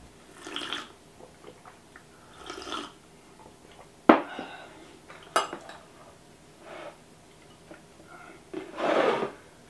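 Two sips from a mug, then the mug set down on a low wooden table with a sharp knock about four seconds in. After it come light clicks, clinks and scrapes of a spoon and chopsticks against ceramic bowls, busiest near the end.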